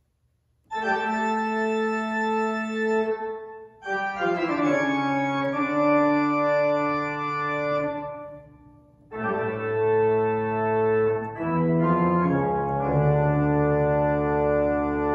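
Organ postlude: slow, sustained organ chords in phrases with short breaks about four and nine seconds in. The held notes waver slightly.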